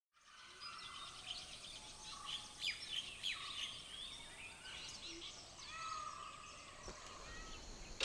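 Faint outdoor ambience of several birds chirping and calling in short, varied notes, over a steady high tone. There is a soft knock near the end.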